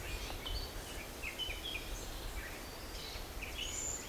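Small birds chirping with short, repeated high notes throughout, over a steady low rumble.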